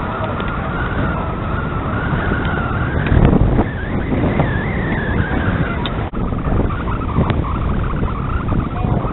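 Strong wind buffeting the microphone, swelling into a loud gust about three seconds in, with a thin high whistle above it that wavers up and down in pitch.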